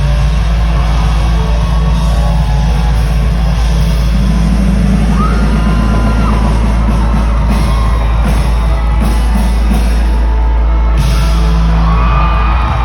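Loud live rock music with a heavy, booming bass end, and audience members whooping and yelling over it.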